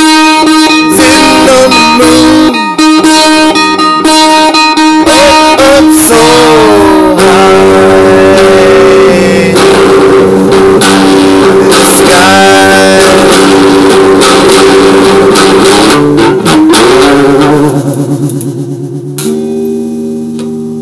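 Guitar-led music with notes bending up and down in pitch. Near the end it thins out and settles on one held chord that rings and slowly fades.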